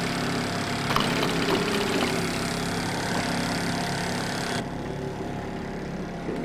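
Boat engine running steadily at trolling speed, with a few light clicks about a second in. The hiss above the engine drops away abruptly about two-thirds through.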